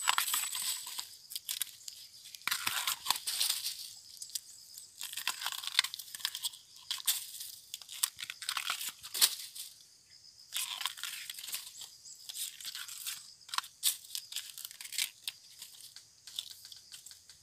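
Fresh bamboo shoot being peeled with a bolo knife: the tough outer sheaths are cut and torn away in irregular scratchy, crunchy bursts with sharp snaps.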